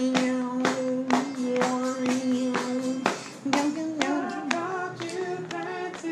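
Music: a singing voice holds one long note for about three seconds, then moves into a wavering melody, over steady claps about twice a second.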